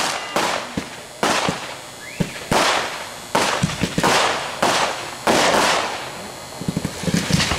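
Aerial fireworks bursting in quick succession, about nine bangs each trailing off in a fading hiss. A flurry of small rapid crackling pops comes near the end.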